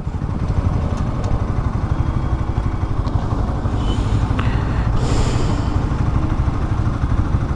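A motorcycle engine running steadily, its fast-pulsing low rumble holding level throughout.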